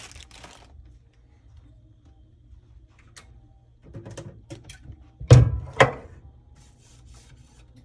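Two dull knocks on a workbench about half a second apart, with light rustling of paper wipes being handled just before.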